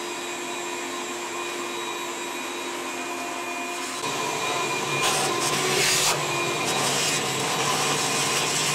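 A vacuum running, sucking loosened chips of dried thinset out of the joints between river rock mosaic tiles. Its steady motor whine gets louder about four seconds in, with rushes of hiss as the nozzle works over the floor.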